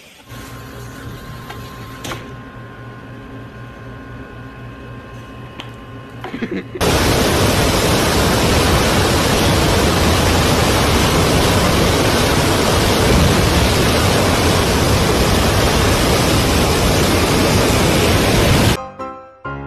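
Fire hydrant blasting a high-pressure jet of water against a car: a loud, steady rushing hiss that starts suddenly about seven seconds in and cuts off near the end. Before it, a quieter steady rush with a low hum.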